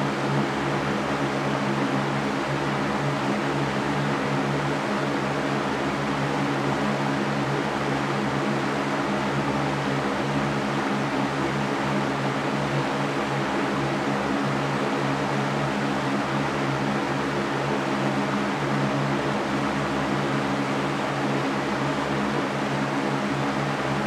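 Large metal drum fan running steadily: an even rush of air over a low, constant hum, with no change in speed.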